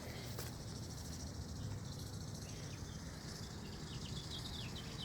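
Honey bees humming around an open hive, with a steady, high pulsing insect trill over it and a few quick bird chirps between about three and four and a half seconds in.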